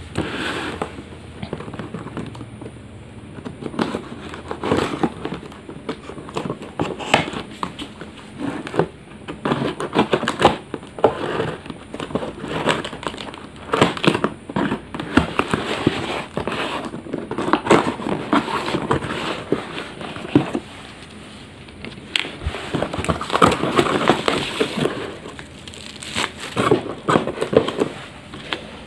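A plastic courier parcel being cut and opened by hand: irregular crinkling, rustling and crackling of the plastic wrapping, with sharp clicks throughout.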